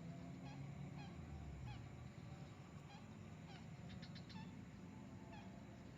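Faint, short animal calls repeated many times, each a brief falling note, with a few light clicks about two-thirds of the way through.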